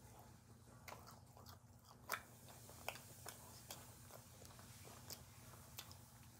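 A person chewing food with the mouth closed: quiet, scattered wet clicks and smacks, the sharpest about two seconds in.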